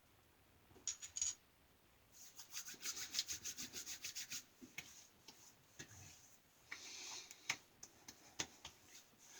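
Hands rubbing briskly against each other and on skin, spreading aftershave: a quick run of about seven rubbing strokes a second, then slower rubbing with a few light taps. A few short clicks about a second in.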